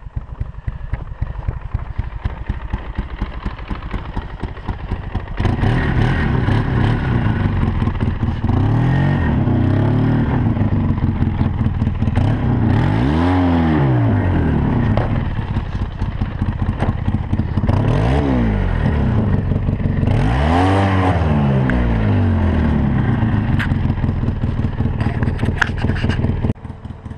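Four-wheeler (ATV) engine working hard in deep snow as it climbs over a snowbank. It runs quieter for about five seconds, then louder, revving up and falling back four times.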